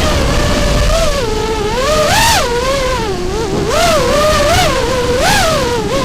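Brushless motors of a 5-inch FPV racing quadcopter on three-blade props, whining and swooping up and down in pitch again and again as the throttle is worked, over a rough rushing noise.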